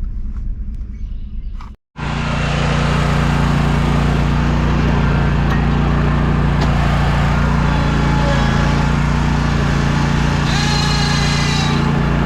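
Small gasoline engine running steadily at a constant speed, starting abruptly after a cut about two seconds in, with a brief high warble near the end.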